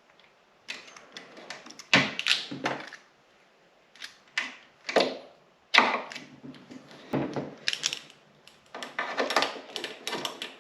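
Hand tools working at a snowmobile's plastic side-panel latch mounts while old rubber latches and their rivets are cut and pried out: a string of irregular short clicks, knocks and scrapes. The sharpest knocks come about two seconds in and near six seconds, with a denser patch of rattling scrapes near the end.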